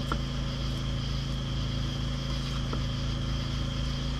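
Steady low machine hum, like a small engine or motor running, with a thin steady high whine above it. A faint light tick comes just after the start and another about two thirds of the way through.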